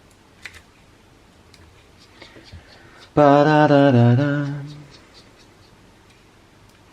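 A man's voice singing a short "ba-da-da-da-da" tune to himself about three seconds in, lasting about a second and a half. Before it come faint light clicks of small parts being handled.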